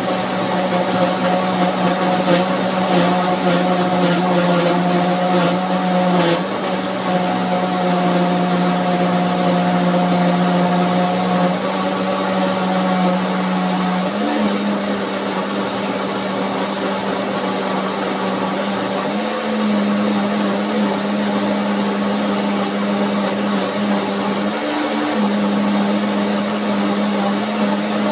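Countertop blender running on soaked peeled black-eyed beans and water, grinding them into a smooth batter: a steady motor hum with a high whine. Its pitch steps up about halfway through and shifts slightly a few more times.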